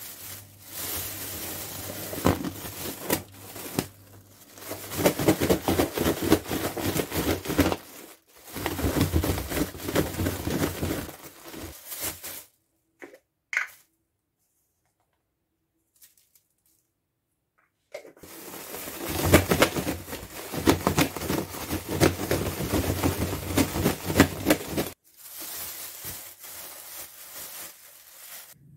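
Thin plastic bag rustling and crinkling as raw potato sticks are shaken and tossed inside it to coat them. It comes in several long bouts, with a silent stretch of a few seconds in the middle.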